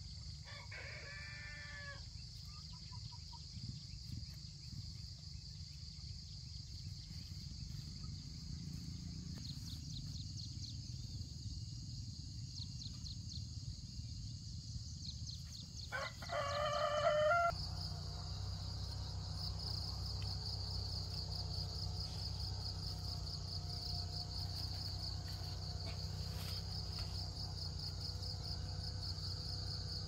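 A rooster crowing twice, briefly at the start and louder about sixteen seconds in, over a steady pulsing chirring of insects that grows louder after the second crow.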